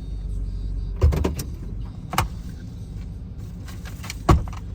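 Plow truck engine running steadily, with a few sharp clicks and knocks: a cluster about a second in, one at about two seconds, and a louder knock near the end.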